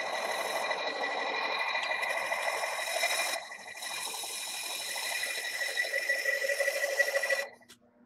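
18-inch Monarch engine lathe running with a tool cutting the end of a steel hydraulic cylinder tube held in a steady rest. It makes a steady machine noise with a high ringing tone, dips briefly about three and a half seconds in, and cuts off abruptly near the end.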